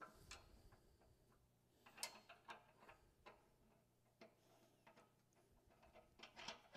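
Faint, irregular metallic clicks and ticks of steel bolts and washers being handled and fitted by hand into a plow mount, a few slightly louder clicks around two seconds in and near the end.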